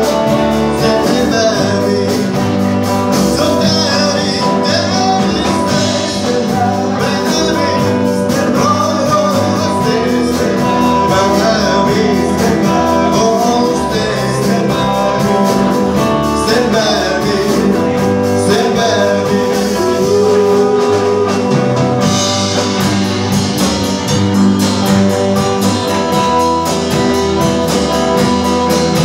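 A live band playing a rock and roll number with singing, guitar, upright double bass and drum kit, heard from among the audience in a small club.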